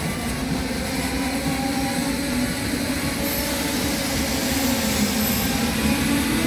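Train running along the track: a steady rumble with a low droning hum that shifts slightly in pitch.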